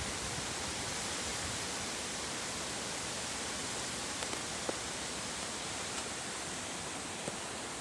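Wind blowing steadily through trees, the leaves rustling in a continuous even hiss, ahead of a storm. A few faint ticks are heard in the second half.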